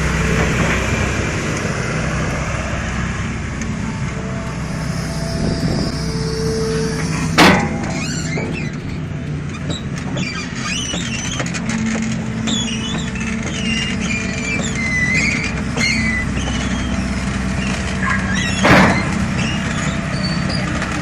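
A heavy vehicle's engine running steadily, with two loud bangs, one about seven seconds in and one near the end, and some high squeals in between.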